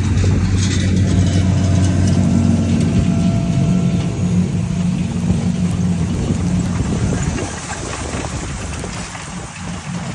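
Tractor engine running steadily with a low drone, becoming somewhat quieter about seven seconds in.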